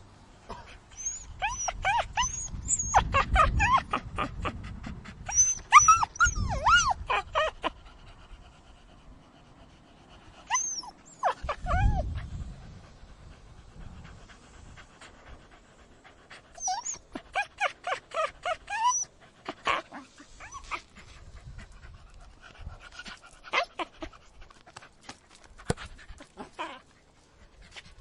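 Dog yelping: quick runs of short, high, sliding yelps in four volleys with pauses between, then a few scattered single sounds near the end.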